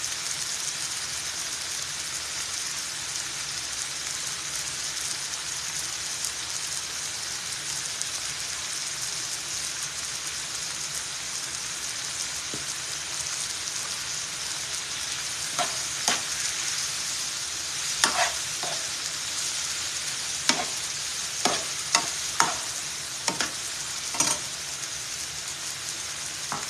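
Onions, bell peppers and yam slices sizzling in oil in two frying pans, a steady hiss. From about halfway on, a metal slotted spoon clacks and scrapes against the pan as the vegetables are stirred.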